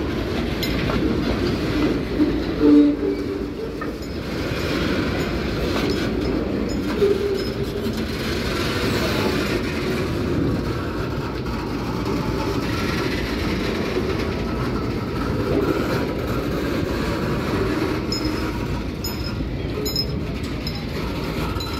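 Tank wagons of a long freight train rolling past close by: a steady rumble and rattle of wheels on the track. A brief louder tone sounds about three seconds in.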